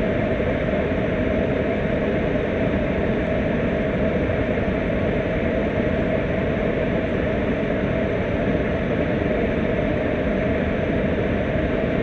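Gas flamethrower burning, a steady low rush of flame with no break or change.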